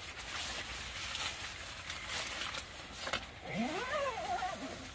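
The tent's fabric inner door rustling and flapping as it is unrolled and fastened across the doorway. Near the end a brief pitched sound rises and then falls.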